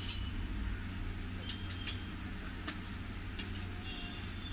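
A scattering of light metallic clinks and ticks from steel plates and utensils on a steel counter, some with a brief high ring, over a steady low background hum.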